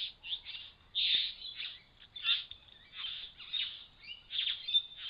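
Birds calling: a quick string of short high notes, a few a second, with louder notes about a second in, a little past two seconds and near the end.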